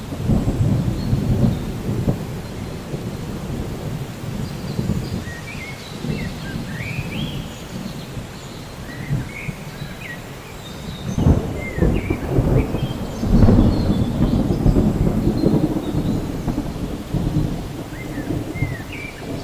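Steady rain with thunder rumbling low and long, swelling loudest a little past halfway through. Short high chirps, like small birds calling, are scattered over the top.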